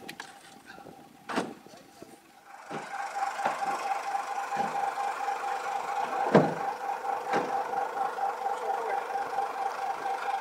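Plastic harvest crates knocking as they are handled and set down, a few sharp knocks. From about two and a half seconds in, a steady pulsing engine-like hum runs under them.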